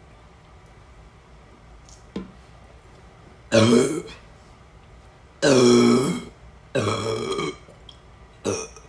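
A run of loud, deep burps: three in a row, the middle one longest, then a shorter, softer one near the end. They are full-stomach burps, not hiccups.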